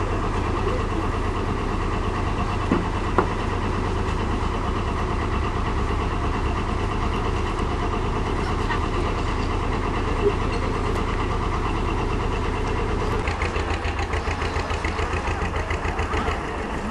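A boat's engine running steadily with a low rumble, with a couple of light knocks about three seconds in. Toward the end it takes on a regular throbbing pulse.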